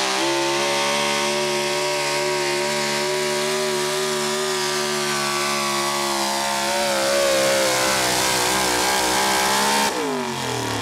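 Pro stock 4WD pulling truck's engine held at high revs under full load as it drags a weight-transfer sled. Near the end the throttle is let off and the engine note drops and falls away as the pull ends.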